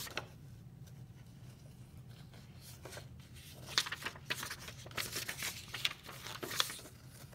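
Paper rustling as a printed paper leaflet is flipped and handled against a leather notebook: a few short, crisp rustles in the second half, after a quiet start.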